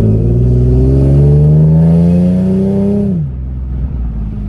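Infiniti G37's V6 with an Ark Grip exhaust accelerating, its note rising steadily for about three seconds, then falling away sharply to a lower, steady drone. The exhaust has leaks at the flex pipe and the mid pipe.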